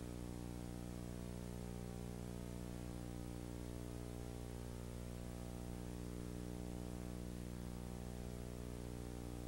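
Steady electrical hum with a dense stack of overtones over constant hiss; no sound from the scene itself is heard.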